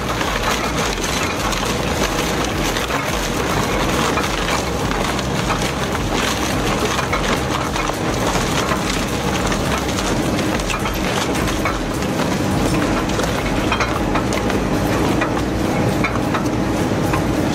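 Industrial rotary shredder's hooked cutter rotor tearing through scrap wood and plywood: a steady machine hum under constant cracking and splintering. The hum grows stronger about two-thirds of the way through.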